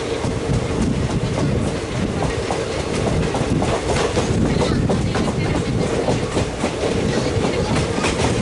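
Passenger train wheels clattering over rail joints: a loud, steady rumble with a quick, uneven run of sharp clicks.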